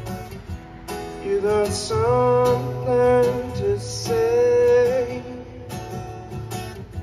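Live solo song with acoustic guitar: strummed chords under a single voice that comes in about a second in and sings long notes that slide between pitches, in phrases with short breaths between.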